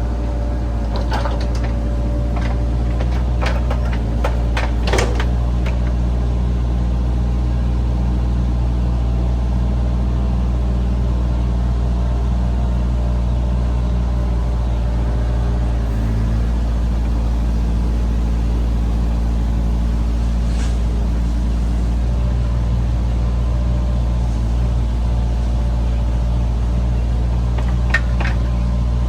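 Bobcat compact excavator's diesel engine running steadily, with a few sharp metallic clanks in the first five seconds, once near the middle, and again near the end.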